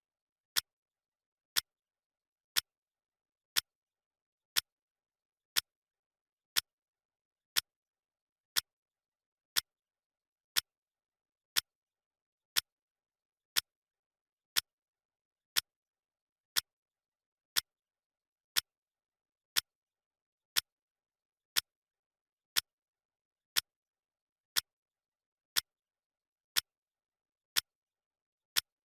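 Clock-ticking sound effect of a countdown timer: one sharp tick every second, evenly spaced, with silence between ticks.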